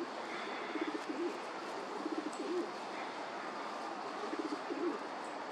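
A pigeon cooing in three short phrases, each a few low pulsing notes ending on a stronger note, over steady background hiss.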